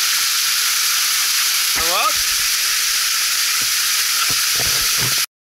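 Small waterfall splashing onto a rock ledge: a steady hiss of falling water, with a short rising voice about two seconds in. The sound cuts off suddenly near the end.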